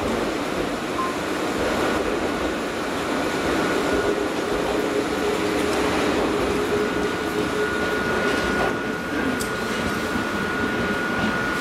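Ichibata Electric Railway 3000 series electric train (a former Nankai 21000 series set) pulling out and running away along the track, a steady rumble of wheels and running gear with a hum from its motors holding for a few seconds in the middle.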